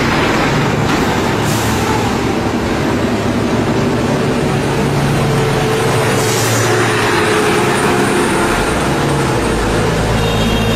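Steady road and engine noise heard from a moving vehicle, with the drone of heavy diesel trucks climbing the hill. A deeper rumble comes in near the end as a loaded dump truck is passed close by.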